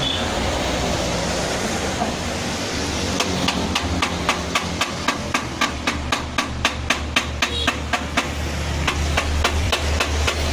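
Rapid, even tapping, about four strikes a second, over a low hum that grows louder near the end.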